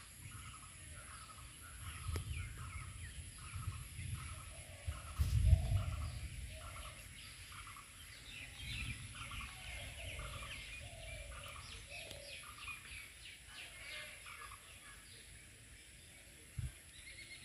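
Birds calling: one short note repeats a little under twice a second, with higher twittering chirps over it in the middle. A low rumble of wind or handling on the microphone swells about five seconds in.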